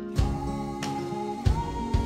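Background music: a song with regular beats under a held melody note that steps up in pitch about halfway through.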